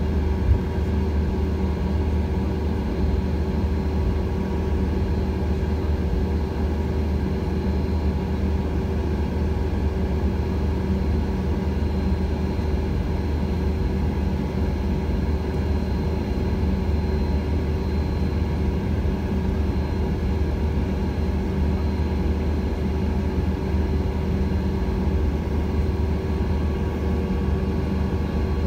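Jet airliner taxiing, heard from inside the cabin: the engines at low taxi power make a steady low rumble with a few faint steady whining tones over it.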